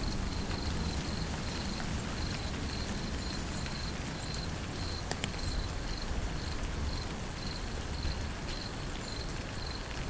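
Steady rain falling, with scattered drop clicks and a low rumble underneath. An insect, such as a cricket, chirps through it in short high pulses about twice a second.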